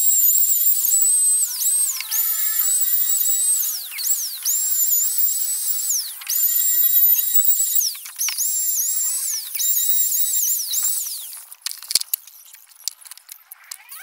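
Compact electric trim router running at high speed with a high whine that keeps dipping briefly in pitch and recovering as the bit cuts along the plywood edge. It is switched off near the end, followed by a few light clicks as the tool is handled.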